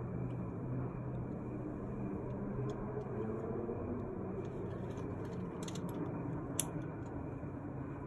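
Steady low background noise, with a few faint clicks about two-thirds of the way through.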